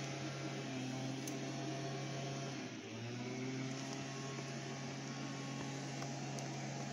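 Honda RC51 SP2's V-twin engine idling steadily through a shortened Yoshimura RS-3 slip-on exhaust, with a brief dip about three seconds in.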